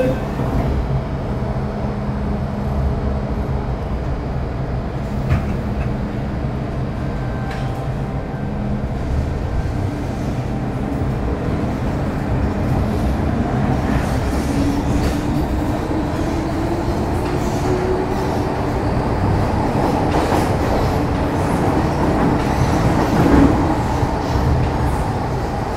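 Inside a Metro Cammell M-Train (CT-stock) EMU pulling away and gathering speed, with the running noise of wheels on rail. The GEC GTO chopper traction equipment gives a whine that rises in pitch about halfway through, and there is a short louder bump near the end.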